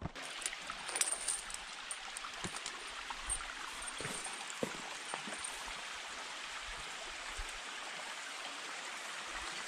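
Steady rushing hiss outdoors in a rocky gully, with scattered small clicks of stones shifting underfoot on loose scree.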